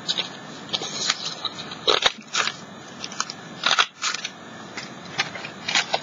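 Paper crinkling as it is handled and folded for a collage, with irregular sharp crisp clicks. The loudest come about two seconds and about four seconds in.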